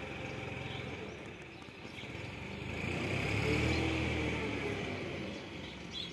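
A motor vehicle passing by, growing louder to a peak a little past halfway and then fading away, its engine note rising and then dropping as it goes past.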